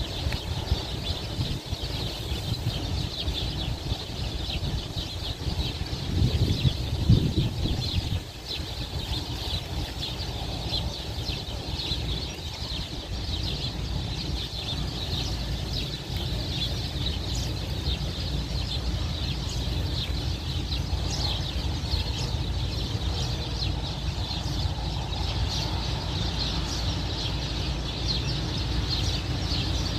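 Strong sandstorm wind buffeting the microphone with a steady low rumble, gusting harder about six to eight seconds in. Over it, small birds chirp continuously in quick, high notes.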